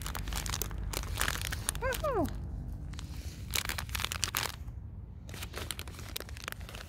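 A bag crinkling and rustling in three bouts as incense powder is shaken out of it into a bowl. A short falling whistle-like tone is heard about two seconds in.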